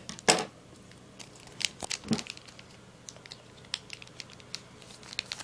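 A trading-card booster pack's foil wrapper being torn open and crinkled: scattered sharp crackles, the loudest just after the start.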